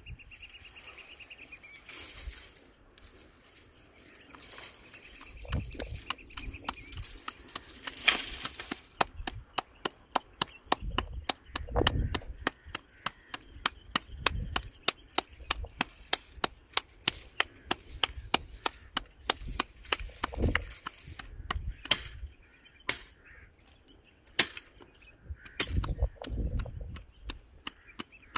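A rapid run of sharp cracks and snaps, several a second for about twelve seconds in the middle, with louder single knocks and dull thuds before and after.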